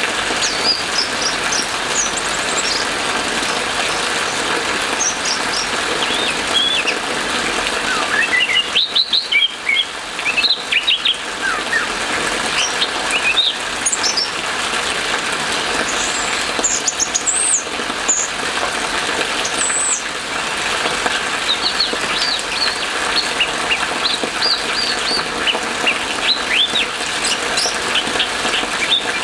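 Orange-headed thrush in full song, a long varied run of quick whistled and chirping notes, many sliding up or down in pitch, over a steady hiss of rain.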